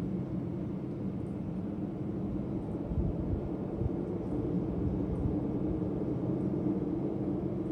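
Low, steady droning hum from the sky, several held low tones layered over a rumble: the kind of unexplained 'strange sky sound' reported by witnesses.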